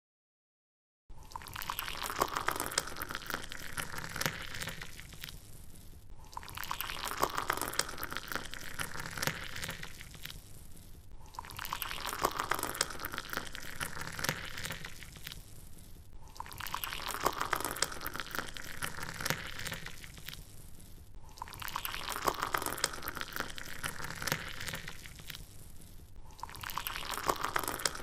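Rushing, gushing water, looped: the same few-second pass repeats about every five seconds with a brief dip between repeats, each pass rising slightly in pitch. It starts about a second in.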